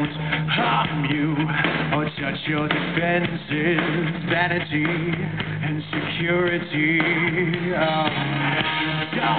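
Live rock band playing, with a male lead singer holding long sung notes over electric guitars.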